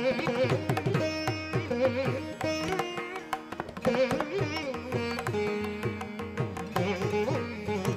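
Instrumental background music in Indian classical style: a plucked string melody with bending notes over a repeating low accompaniment.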